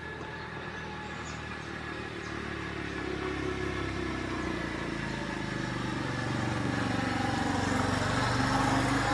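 A motor vehicle's engine running and growing steadily louder as it approaches.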